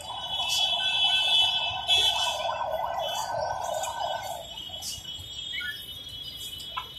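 City street traffic with a steady, high-pitched alarm-like tone sounding continuously over it. A rougher, lower noise under the tone stops about four and a half seconds in.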